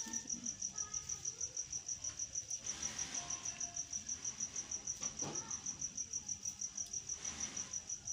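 A cricket chirping: one high note pulsed in a rapid, even rhythm, several pulses a second, without a break.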